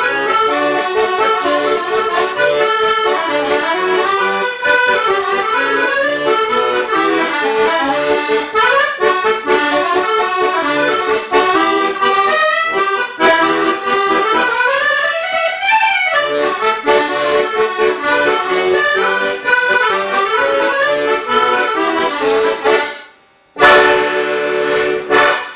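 Accordion music with a lively melody, stopping abruptly about 23 seconds in, then a short loud final burst.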